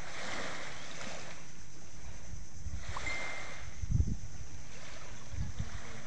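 Small waves washing up on a pebble beach, swelling at the start and again about three seconds in. Wind buffets the microphone in low rumbles about four seconds in and again near the end.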